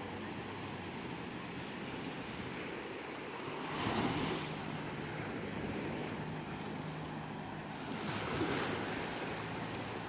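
Small waves washing up onto a sandy beach and running back, surging louder twice, about four seconds in and again about eight seconds in.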